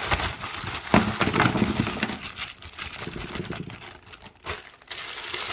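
Packaging of toy goodie bags crinkling and rustling as it is handled and opened. There is a sharper rustle about a second in, and a quieter lull just before the end.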